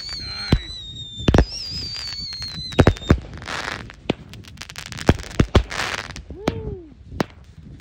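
Consumer fireworks going off: a string of about nine sharp bangs over crackling, with a high whistle slowly falling in pitch through the first three seconds.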